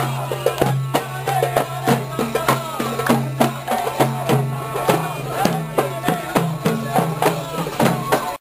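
Hand-held frame drum beaten in a steady, fast rhythm, about three strokes a second, while marchers chant and sing along. A steady low hum runs underneath.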